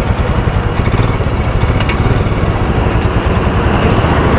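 Royal Enfield Himalayan's 411 cc single-cylinder engine idling steadily.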